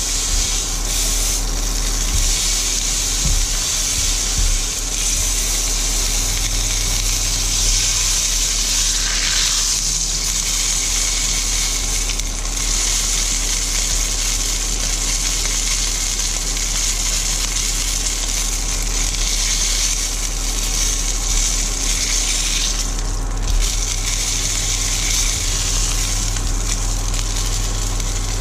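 Marinated porterhouse steak sizzling steadily in a hot non-stick frying pan as it is turned with tongs.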